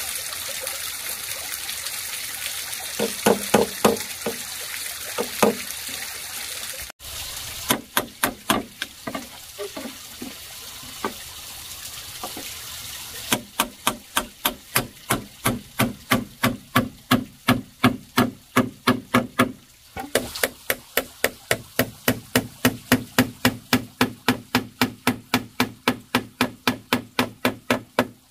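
Hammer striking nails to fasten bamboo poles to a wooden frame. A few scattered blows come first, then a long, even run of quick strikes, about three or four a second, with a short break about two-thirds of the way through.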